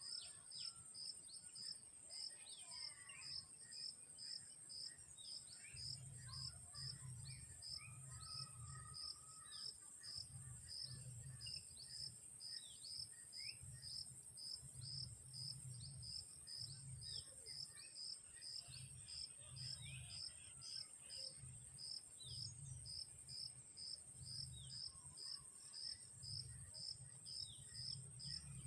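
Insects chirping: a steady high trill with a second, pulsed chirp repeating about twice a second, and scattered short bird calls. A low rumble comes and goes beneath them from a few seconds in.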